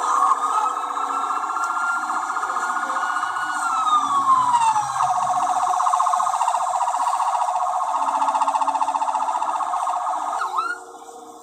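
Ambulance siren wailing: a slow rise in pitch, held, then a slow fall, followed by a rapid warble that cuts off near the end.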